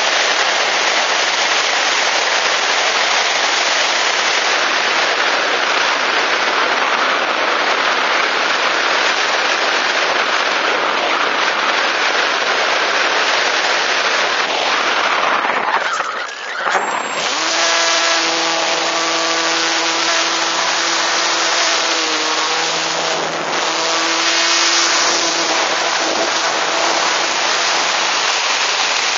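Airflow rushing over the onboard camera of a Multiplex EasyGlider RC glider in flight. About two-thirds of the way in the rush briefly dips, then the glider's electric motor and propeller start and add a steady pitched hum over the wind noise.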